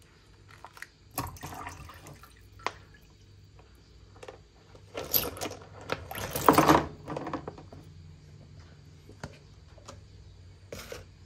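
Water sloshing and pouring as a cup of water is tipped over and lifted out of a plastic basin of water. A few brief splashes come in the first couple of seconds, the loudest pouring about six to seven seconds in, and a short splash near the end.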